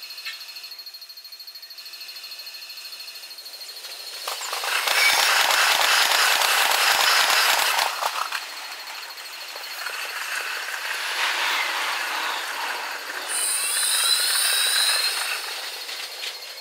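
JR E233-7000 series electric train passing close by, the sound sped up sixfold. Its wheel clatter comes as a dense run of rapid clicks in the loudest part, followed by steady running noise and a few rising whines near the end.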